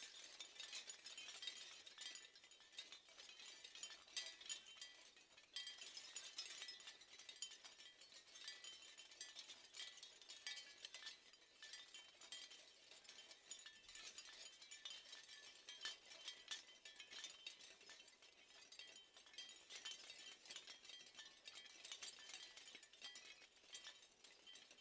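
Faint seashell wind chimes clinking and tinkling in a dense, unbroken stream of small, high strikes.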